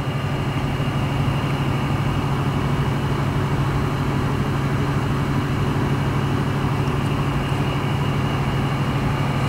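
A steady low machine hum, even throughout, with a strong deep tone under a wash of noise.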